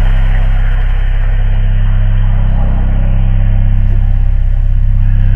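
Loud steady electrical buzzing hum with hiss from a Cobra GXT two-way radio's speaker as it receives on the weather channel, cut off suddenly near the end.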